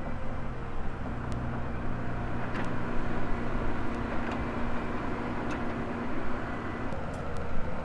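Volvo excavator's diesel engine running steadily under working load, its drone shifting in pitch a couple of times, with a few faint sharp clicks or clanks.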